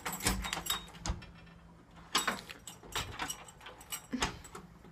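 Scattered short knocks and clicks, about eight or nine of them, from handling and moving about, with a door among them.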